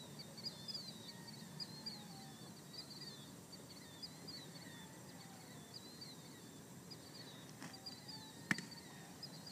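Birds chirping continually in quick, high-pitched twitters. Near the end comes a faint tap, then a single sharp smack as the long-snapped football lands in the catcher's hands.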